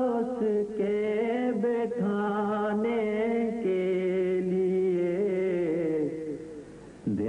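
Devotional Punjabi song: one voice holds long notes that waver in pitch, fades out about six seconds in, and starts a new phrase right at the end.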